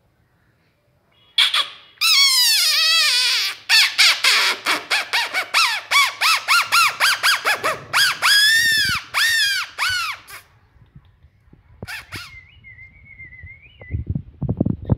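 French bulldog puppy crying: loud, high-pitched yelps and whines, a long falling cry first, then a rapid run of short yelps and a few longer rising-and-falling squeals, stopping about ten seconds in. A faint thin whine follows, and a few low thumps come near the end.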